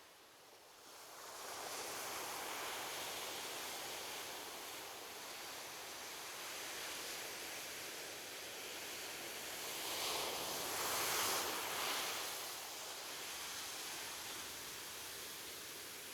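Ocean waves breaking and washing up a beach. One wave swells about a second and a half in, and a louder one breaks between about ten and twelve seconds in, then the wash slowly fades.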